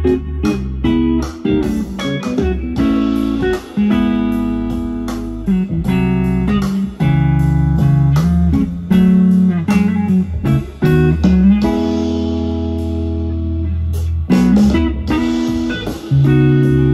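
Blues-flavoured electric guitar playing on an Edwards Telecaster-style guitar, a run of single notes and chords over a band with bass guitar and drums, with one long held chord about three-quarters of the way through.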